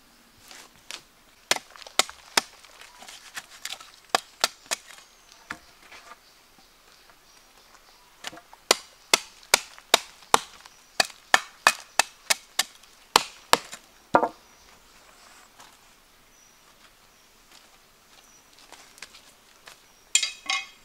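Wood being chopped: sharp blade strikes into timber, a few scattered at first, then a steady run of about fifteen chops at roughly two to three a second before they stop.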